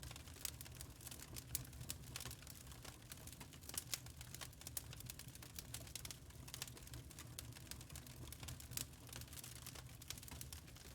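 Wood fire in a fireplace crackling, with irregular pops and snaps of the burning logs over a steady low rumble.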